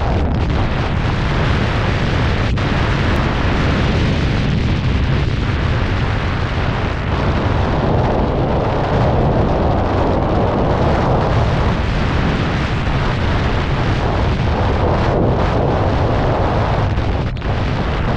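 Loud, steady rush of airflow buffeting the microphone of a camera mounted on a hang glider's wing during the low final glide to landing.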